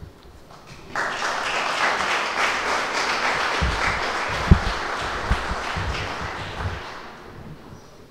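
Audience applauding, starting suddenly about a second in and fading away near the end. A few low thumps sound in the middle, the loudest about four and a half seconds in.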